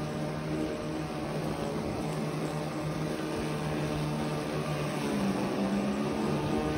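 Remote-controlled electric-drive lawn mower running while it cuts through tall grass: a steady motor hum over a rumble, with a second, slightly higher tone coming in about five seconds in.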